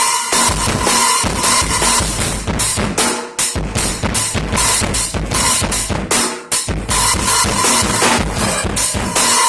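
Drum kit played solo in a loud, busy freestyle, with rapid strikes packed close together and two brief breaks, about a third and two-thirds of the way through.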